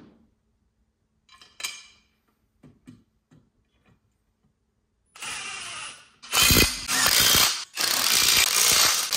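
Ratchet wrench running down the bolts of a motor mount bracket on an engine block. A few light clicks and knocks come first, then, from about five seconds in, four long spells of ratcheting, the last three louder.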